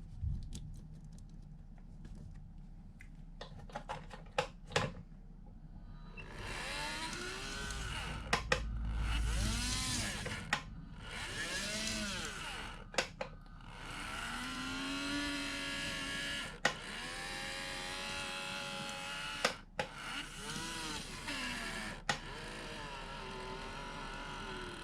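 Small electric motor of a KATO N-gauge model train whirring, its pitch rising and falling several times as the speed is turned up and down, with several sharp clicks; the motor has a bad abnormal noise from heavy use.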